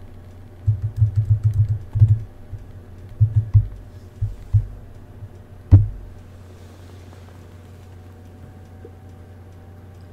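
A quick, irregular run of dull, low taps and thumps, then one sharp click about six seconds in, over a steady low hum.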